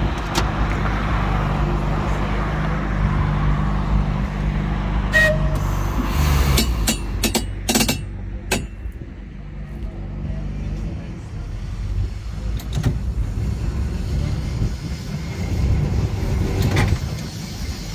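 Heritage tram running along the track, heard from on board: a steady low running hum with sharp clicks and knocks from the wheels and body, most of them bunched about six to nine seconds in.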